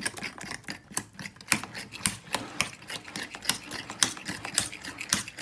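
A fork beating pancake batter in a ceramic bowl, clinking against the bowl's side in quick, uneven clicks, a few a second.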